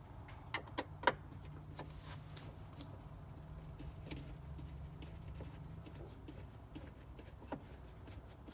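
A few light clicks and taps of hand work on the dashboard as a T20 Torx screw on the Porsche Boxster's instrument cluster is undone, the sharpest about a second in, over a low steady hum.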